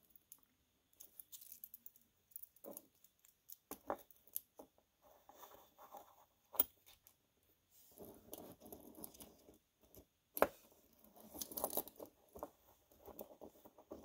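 Faint small metallic clicks and clinks from a metal watch bracelet and its clasp being handled while it is refitted, with soft handling rustle in between; the sharpest click comes about ten seconds in.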